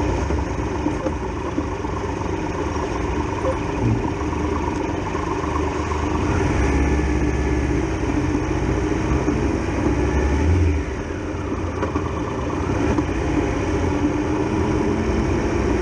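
Triumph Tiger Explorer XRx's three-cylinder engine running as the motorcycle rides through town. It pulls harder and louder for a few seconds in the middle, then drops back suddenly as the throttle closes.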